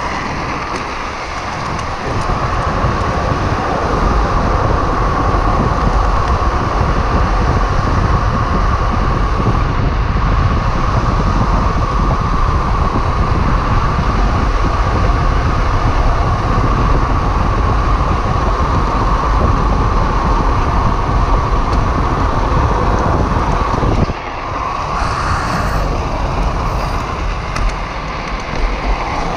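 Steady rush of wind over the microphone with the drift trike's wheels rolling on asphalt at speed on a downhill run. Near the end the sound drops suddenly and turns lighter.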